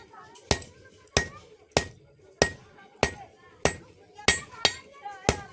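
Blacksmith's hand hammer striking iron on an anvil at a steady pace, about nine blows in under six seconds. Each blow is a sharp clang with a brief ring.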